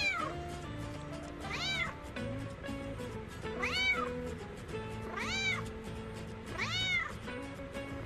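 A cat meowing over and over, about five drawn-out meows each rising then falling in pitch, over background music.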